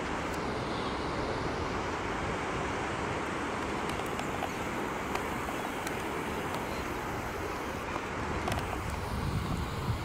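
Steady hiss of surf breaking on a sandy beach, with wind buffeting the microphone in gusts near the end.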